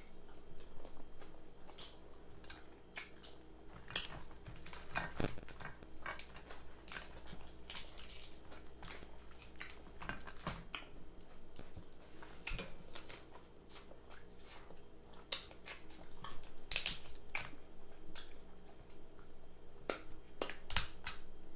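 Crab-leg shells being cracked and crab being chewed close to the microphone: a string of irregular sharp cracks and clicks.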